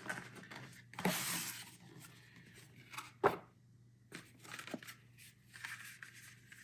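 A cardboard graphics-card box being opened: a brief scraping, tearing rustle about a second in, a sharp knock a little after three seconds, then a few light taps and rustles of the packaging.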